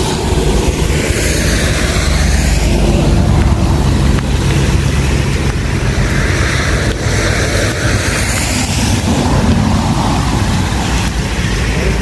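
Steady rain and wind noise on the microphone, with vehicles passing twice on a wet road: one hiss swells and fades about one to three seconds in, the other about six to nine seconds in.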